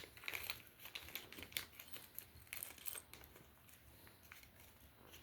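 Light, irregular clicking of small metal mount parts and tiny screws being handled, thinning out after about three seconds.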